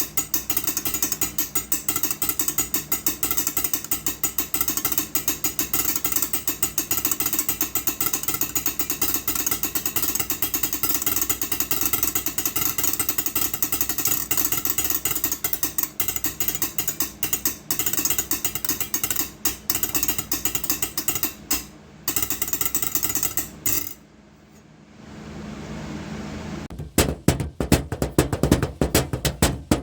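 Rapid, dense tapping on a hard object, a fast run of clicks like a ratchet, for most of the stretch. It breaks off for a few seconds near the end, then gives way to louder, separate knocks.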